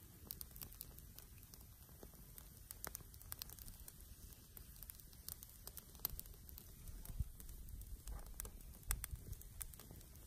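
Small fire of dry twigs crackling faintly, with scattered sharp pops and clicks over a low rumble.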